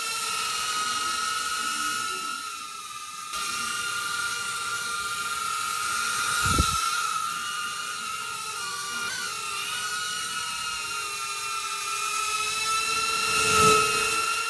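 Inductrix Tiny Whoop micro quadcopter's four tiny brushed motors and ducted propellers whining at a high pitch, the whine wavering as it hovers and manoeuvres and dipping briefly about three seconds in. Two short low thumps come through, one about six seconds in and a louder one near the end.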